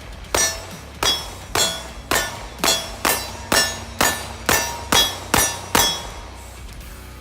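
A CZ P10c 9mm pistol fired in a steady string of twelve shots, about two a second, stopping about six seconds in.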